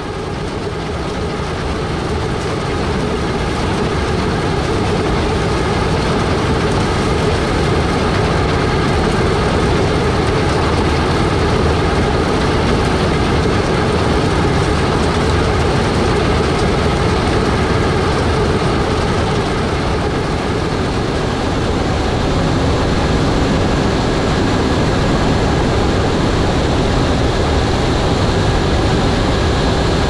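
John Deere X9 1100 combine harvester running under load while harvesting: its 13.6-litre diesel engine and threshing machinery make a dense, steady drone with a few steady whining tones. It grows a little louder over the first few seconds, then holds steady.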